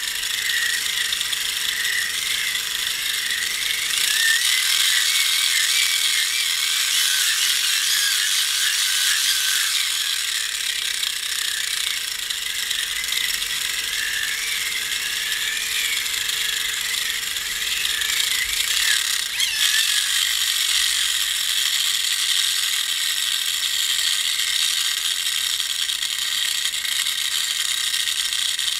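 Small geared hand-crank generator being cranked, its gear train whirring and rattling continuously, with a whine that wavers in pitch as the cranking speed changes.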